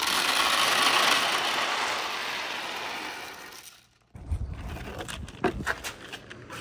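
Many marbles rattling and rolling down a marble run together in a dense, continuous clatter that fades away over about four seconds. After a brief gap, scattered clicks and knocks with a low rolling rumble as single balls run along the track.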